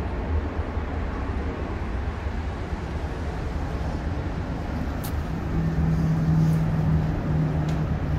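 Steady low outdoor rumble, with a steady low hum like a passing motor vehicle coming in about five and a half seconds in, and a few faint clicks.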